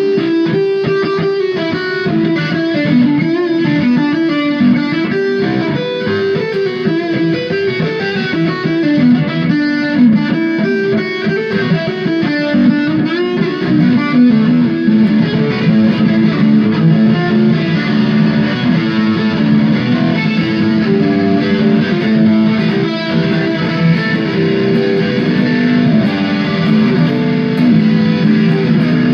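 Electric guitar played solo, improvising melodic lead lines with many quick note changes, then settling into longer held notes in the second half.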